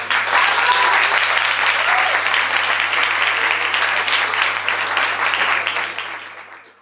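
Audience applauding, a dense clapping that breaks out at once and fades away near the end, with a few voices calling out over it.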